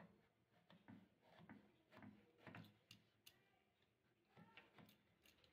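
Near silence with faint, irregular ticks of a kitchen knife cutting out the centre of a thick eggplant slice on a wooden chopping board.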